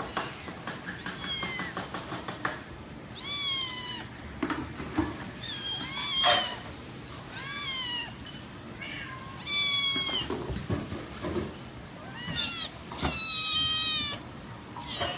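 Several young kittens meowing in turn: a string of thin, high calls, each falling in pitch, one every second or two. Light tapping is heard in the first couple of seconds, before the meows begin.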